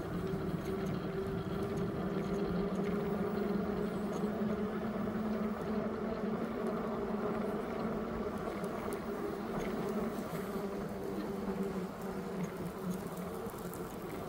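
A steady low hum with a couple of held tones over a background rush, like a motor or engine running.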